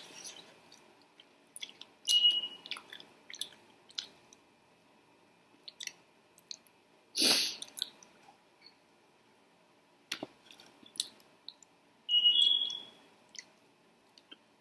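Close-miked chewing and wet mouth sounds of someone eating sauced chicken wings: scattered small clicks and smacks, with three louder bursts about two seconds in, about halfway through, and about twelve seconds in.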